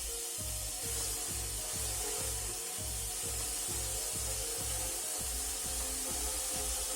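Background music with a steady beat, over a steady hiss.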